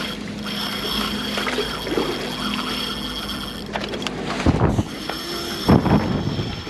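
Steady hum of a boat's machinery with wind buffeting the microphone, in a few heavy gusts after the middle.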